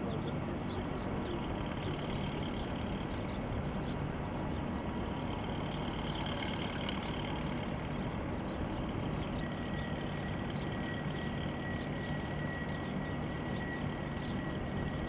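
Steady jet engine noise of a single-engine F-16 fighter on the runway, heard from a distance, with a thin high whine joining about two-thirds of the way through.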